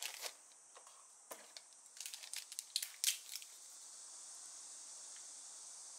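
Small crinkling and clicking handling noises in quick, uneven succession, thickest between about two and three and a half seconds in, followed by a steady faint hiss.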